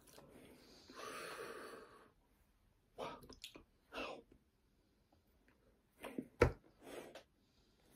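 A person breathing and making soft mouth sounds while signing, with hands and sleeves moving and rustling. A single sharp thump about six and a half seconds in is the loudest sound.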